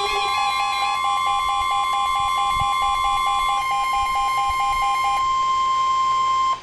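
NOAA Weather Radio's steady 1050 Hz warning alarm tone, which signals the weather warning that follows. An electronic alert receiver beeps rapidly over it, about seven beeps a second, until about five seconds in. The tone cuts off abruptly at the end.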